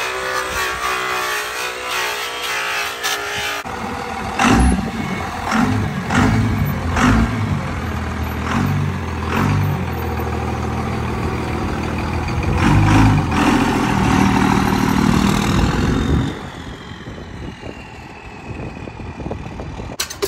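For the first few seconds a power polisher is running. Then a lifted second-generation Dodge Ram diesel pickup's engine runs with repeated revs, loud and low, and it quietens for the last few seconds.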